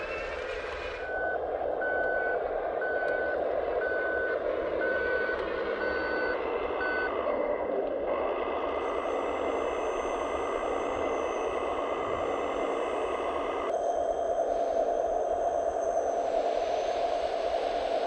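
Radio-controlled scale truck's sound module giving about seven reversing beeps over a steady engine sound. Later a thin high whine comes in, and near the end gravel rushes out of the tipping dump body.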